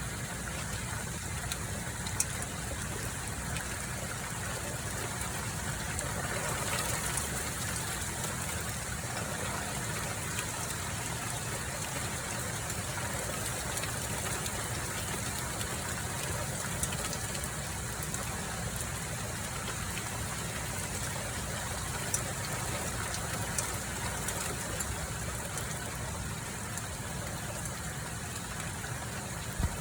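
Hailstorm with heavy rain: a steady rushing downpour over a low rumble, with occasional sharp ticks of hailstones striking.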